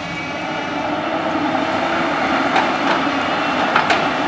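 JCB backhoe loader's diesel engine running steadily under work, with a few sharp knocks in the second half.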